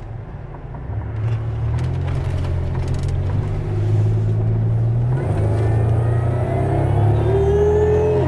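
Supercharged Pontiac V-type engine accelerating hard, its exhaust note growing louder, with a whine that rises steadily in pitch from about five seconds in. The exhaust has had its resonator cut out and replaced with a straight piece of pipe, and there is no rattle.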